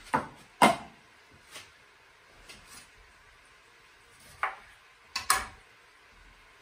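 Sharp knocks and clacks of kitchen utensils handled on a countertop: two loud knocks within the first second, then, about four and a half seconds in, a chef's knife cuts a lemon in half and strikes a plastic cutting board, followed by a quick double knock as the knife is laid down.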